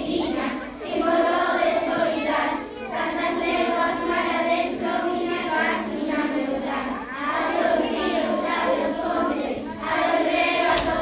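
A group of schoolchildren singing a song together, in phrases of held notes with short breaks between them.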